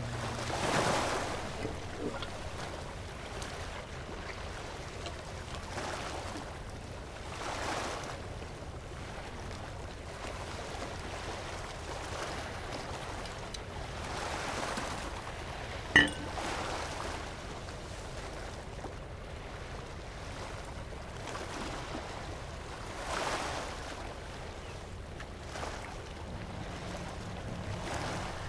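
Waves washing against the shore in slow, soft swells that come and go every few seconds over a steady background hiss. About halfway through a single sharp click stands out.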